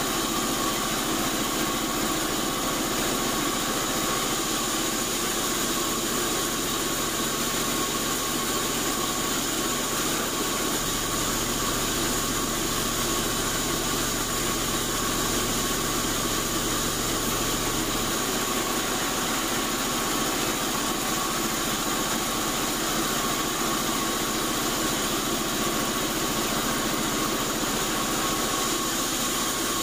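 Band sawmill running with a steady mechanical drone as its carriage feeds acacia timber through the blade.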